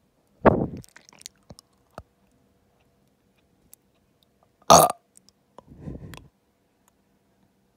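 Close-miked gulping from a person's throat while swallowing a gummy: two loud gulps, one about half a second in and one near five seconds, the second followed by a softer, low throaty gulp. Faint wet mouth clicks fall in between.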